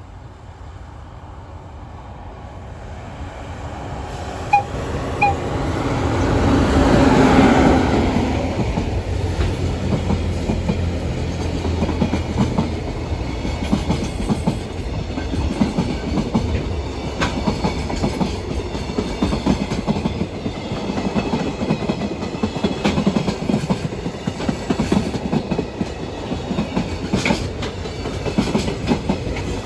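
EF210 electric freight locomotive approaching and passing with its freight train, sounding two short toots on its whistle about four and a half seconds in. The locomotive is loudest at about seven seconds; after that the freight wagons rumble and clatter over the rail joints.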